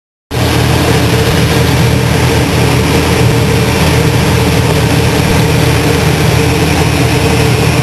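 2002 Chevy Silverado's engine running steadily, heard close under the open hood, cutting in abruptly a moment in.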